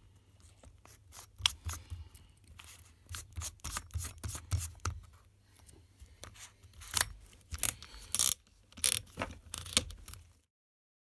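Irregular clicks and scrapes of a cordless drill's keyless chuck being handled and tightened around wire ends and a small brass hook, over a steady low hum; the sounds stop abruptly near the end.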